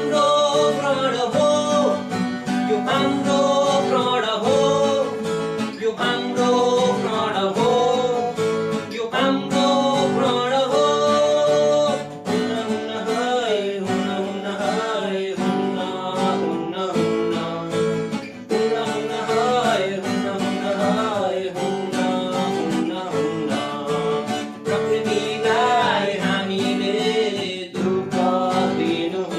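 Music with acoustic guitar under a gliding melody line, an instrumental passage between the sung verses of a song.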